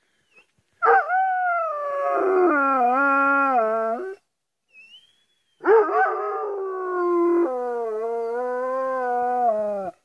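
Hunting dog howling: two long drawn-out howls, the first starting about a second in and the second just past the middle, each three to four seconds long and wavering in pitch.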